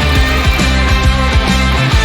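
Background rock music with a steady beat and a strong bass line.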